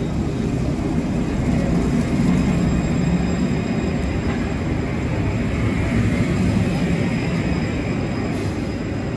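Alstom Citadis 403 tram rolling slowly into the stop right alongside the platform: a steady low rumble of wheels on rail and running gear, with a faint steady high-pitched whine over it.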